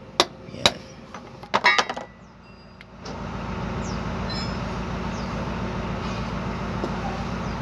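Steel-on-steel hammer blows driving a new cross joint into a truck's propeller-shaft yoke: two single strikes, then a quick run of several blows about a second and a half in. From about three seconds a steady low engine hum takes over.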